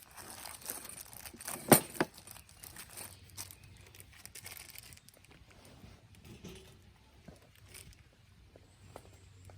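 Crinkly rustling of things being handled, with two sharp clacks close together about two seconds in.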